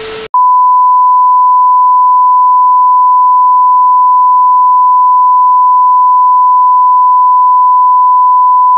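A brief burst of TV static that cuts off a moment in, then a loud, steady, unbroken test-tone beep, the reference tone played over colour bars.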